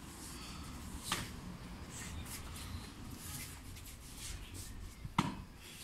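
Soft footsteps and sneaker scuffs on a tiled floor, with two sharp knocks, one about a second in and one near the end.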